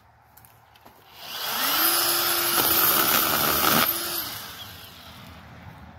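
Ryobi 18-volt brushless battery pruning chainsaw spinning up with a rising whine about a second in, then running steadily as it cuts through a small branch. It winds down about four seconds in.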